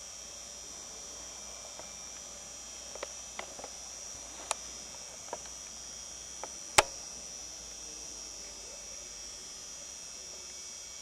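A steady, high-pitched chorus of crickets in an evening meadow. Through the middle comes a handful of sharp, dry clicks, one of them much louder than the rest.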